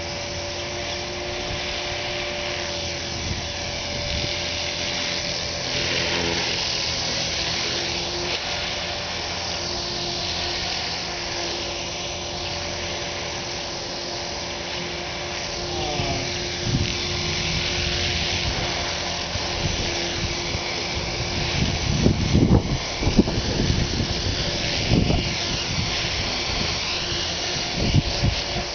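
Align T-Rex radio-controlled helicopter flying, its motor and rotor whine holding a steady pitch. Wind buffets the microphone in low gusty rumbles during the last quarter.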